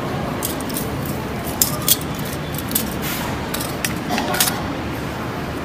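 Light metallic clinks of heavy 18k gold link bracelets being handled, about six sharp clicks spread over a few seconds against a steady background hiss.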